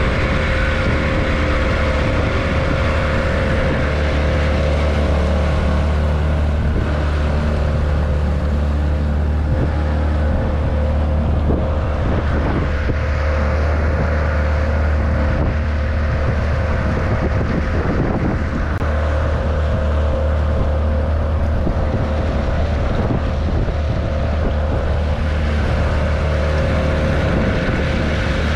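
Small tiller outboard motor running steadily under way, pushing an aluminum boat at a constant throttle.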